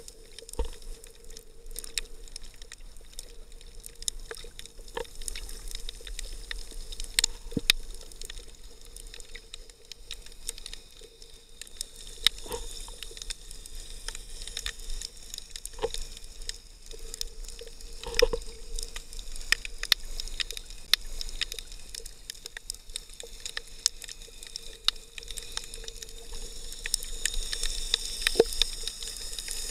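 Underwater sound picked up through a sealed action-camera housing: muffled water movement with scattered sharp clicks and crackles, over a faint steady hum.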